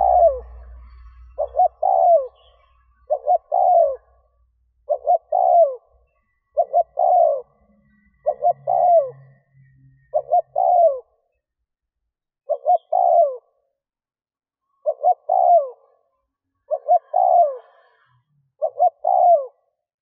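Caged decoy spotted dove cooing over and over, about eleven phrases, one every couple of seconds. Each phrase is two or three short coos and then a longer falling coo.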